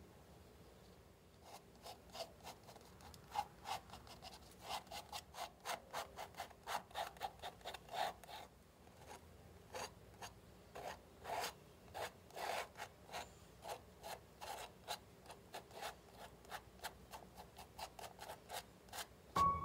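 Metal palette knife scraping and spreading acrylic paint across a textured cotton canvas in quick, repeated short strokes, starting about a second in.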